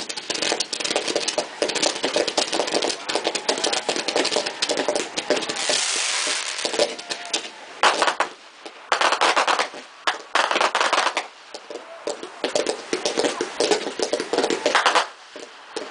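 Fireworks display: a dense run of crackling and popping from fountains and comets, with a hissing stretch about six seconds in and louder bursts about eight, ten and fifteen seconds in.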